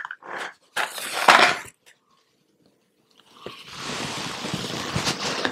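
A match taken from a matchbox and struck: a short rasp about a second in, then about three and a half seconds in a sharp strike as the match catches, followed by a steady hiss as the head flares and burns.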